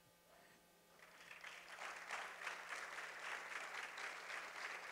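Church congregation applauding. The clapping starts about a second in, builds quickly, then continues steadily.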